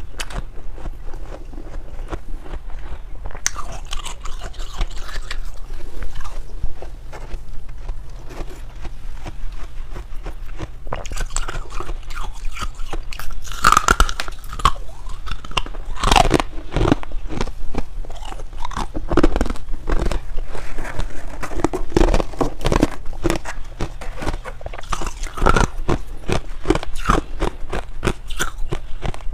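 Close-up biting and chewing of freezer frost: dense, irregular icy crunching, heavier from about halfway through.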